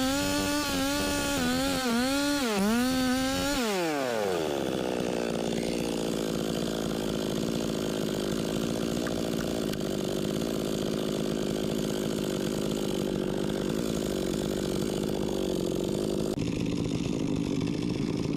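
Chainsaw running at high revs with its pitch dipping and wavering, then about three and a half seconds in the revs fall away quickly and it runs on steadily at a low speed.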